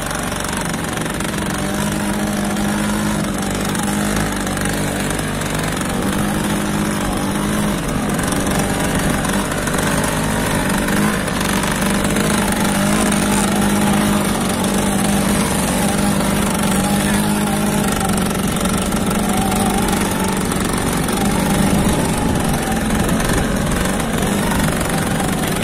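Motorcycle engine running steadily, its pitch wavering slightly.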